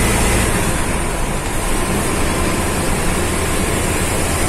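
Steady engine drone and road rumble heard from the driver's cab of a Marcopolo Torino city bus under way, with tyre noise on a wet road.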